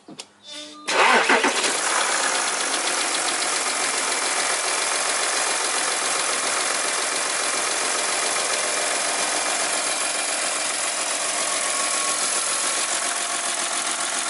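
Audi Q7's 3.0 TDI V6 diesel engine starting suddenly about a second in, after a few short clicks, then idling steadily. It is running on a newly fitted serpentine belt, idler pulleys and tensioner, and the job is judged a success.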